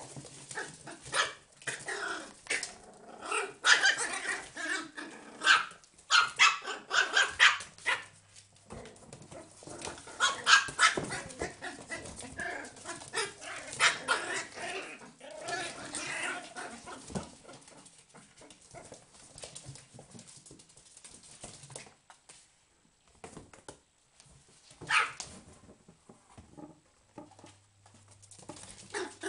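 Pinscher puppies barking and yapping in play, with many short calls close together through the first half, then fewer, with one strong yap about 25 seconds in.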